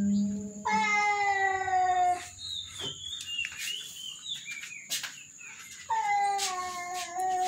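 Cat yowling: two long, drawn-out calls, each sliding slightly down in pitch, one about a second in and one near the end, with short high chirps in between.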